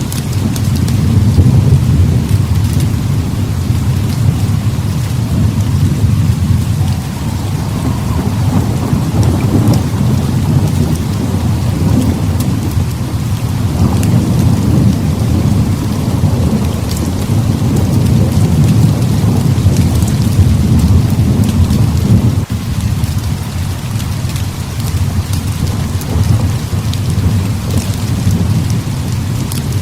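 Heavy rain with deep rolling thunder that swells and eases several times, the low rumble loudest, over a steady hiss of rain; scattered small sharp crackles sound through it.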